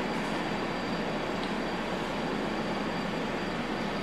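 Steady background hiss with a faint high, steady tone.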